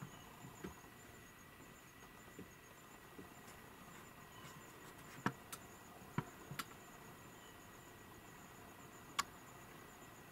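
Faint, steady high-pitched insect trilling, with a few sharp clicks or snaps in the middle and near the end.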